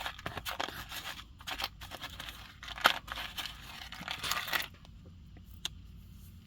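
Small metal costume jewelry and trinkets clinking and rustling as they are handled and sorted by hand: a quick flurry of clicks and scrapes for about four and a half seconds, then only a couple of isolated clicks.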